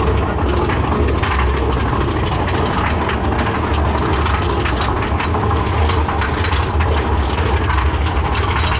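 Big Thunder Mountain Railroad mine-train coaster climbing a chain lift hill: a steady low rumble with a rapid run of ratchet-like clicking from the lift chain and the anti-rollback ratchet.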